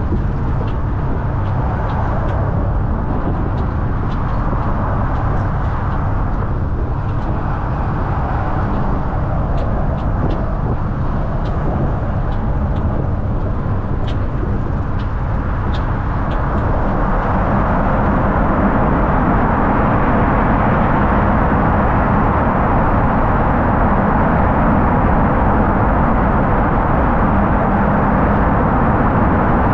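Steady rush of road, engine and wind noise while riding a moving double-decker bus, growing louder a little over halfway through, with a few faint clicks in the first half.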